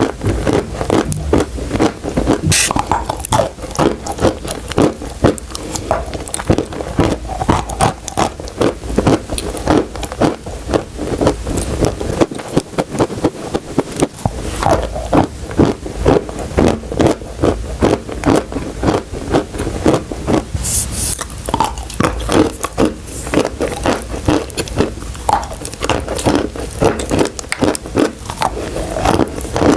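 Steady crunching and chewing of brittle chalk and clay pieces, with sharp crunches coming a few times a second.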